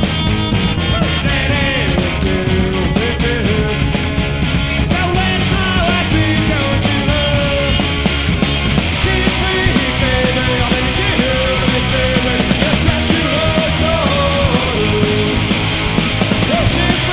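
Loud punk rock song playing: a full band with a dense, steady wall of sound, and a wavering melodic line that comes forward about six seconds in.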